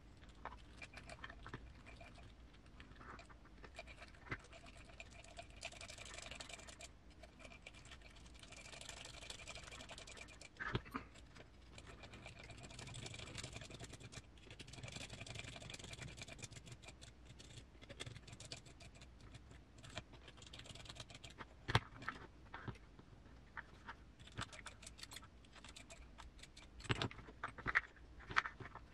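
Small clicks and light scratching of small parts and a driver being handled while tiny screws are fitted into an RC car's transmission case, with a few sharper ticks scattered through.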